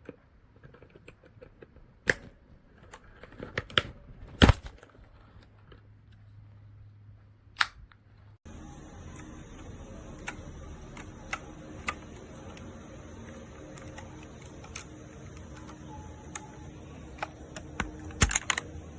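Scattered sharp plastic clicks and taps of keycaps being pulled and handled on a mechanical keyboard with a keycap puller. About eight seconds in, a steady hiss comes in under the clicks.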